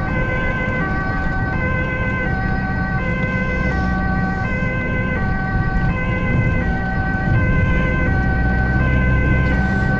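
Dutch ambulance two-tone siren, alternating steadily between a high and a low note about every two-thirds of a second, over the vehicle's engine and road rumble.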